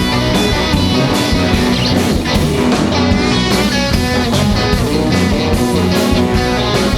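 Live jazz ensemble playing, with guitar to the fore over bass and a steady drum beat.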